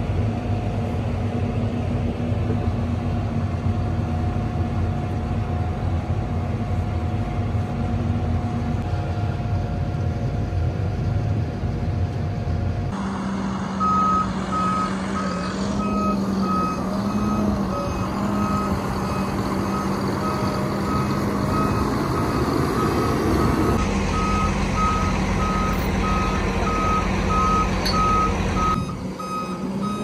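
Tractor diesel engine running steadily, heard from inside the cab. About halfway through, a vehicle's reversing alarm starts beeping at an even pace over a running diesel engine, and keeps on until near the end.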